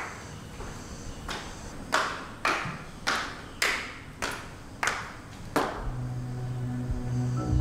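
Hard-soled footsteps going down stairs, sharp clicks that echo in the stairwell, evenly paced at a little under two steps a second. The steps stop a little before six seconds in, and soft music with low held tones fades in.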